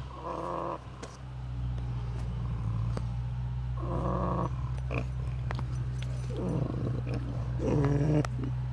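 Pigs snoring in their sleep: four short snores of about half a second each, one at the start, one around four seconds in, and two close together near the end, over a steady hum.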